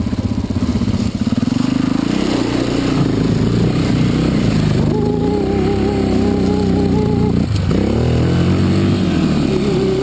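Dirt bike engine running close by under throttle: the pitch climbs over the first two seconds, holds steady, dips briefly about seven and a half seconds in, then picks up again.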